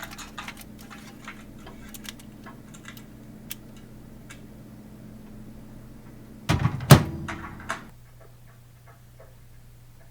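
Microwave oven door being shut with a loud knock about two-thirds of the way in, after a few light clicks and taps. A faint steady hum cuts off just as the door closes.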